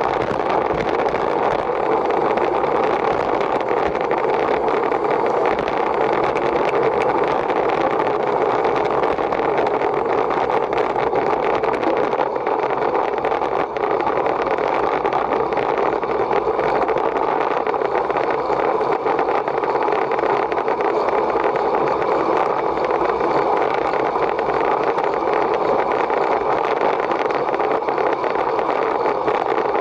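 Steady rushing noise of wind and road, unbroken.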